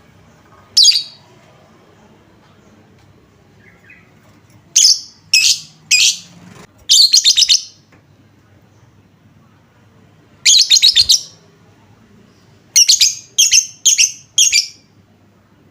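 Lovebird calling in sharp, high-pitched chirps and short rapid chattering trills, coming in clusters with pauses between them: a call meant as a lure to set other lovebirds calling.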